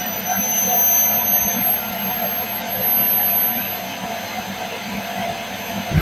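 Miele Tango Plus 1800 canister vacuum running with a steady high-pitched whine while nylon tights are drawn into its hose nozzle. The raised pitch is held for the whole stretch, the sign of the fabric choking the airflow at the nozzle.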